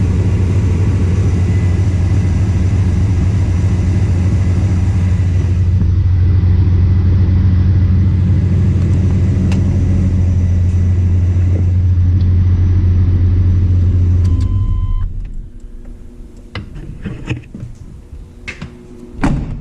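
Pickup truck engine idling steadily, then shut off about fifteen seconds in, followed by a few light clicks and knocks.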